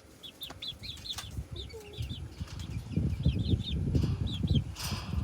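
Backyard chickens chirping in a run of short, high peeps. From about two and a half seconds in, a low rustling and thumping builds beneath them and grows louder toward the end.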